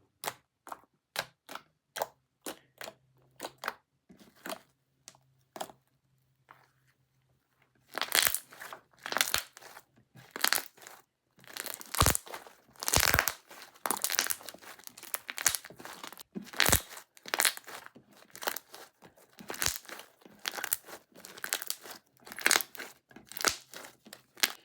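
Homemade slime being squeezed and pressed by hand close to the microphone: a series of short sharp pops about two a second, a brief pause, then a dense run of crackling pops.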